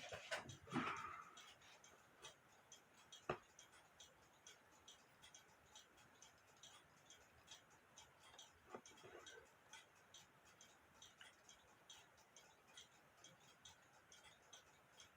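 Faint, steady, fast ticking of a clock. A single sharp click comes about three seconds in, and a softer knock near nine seconds.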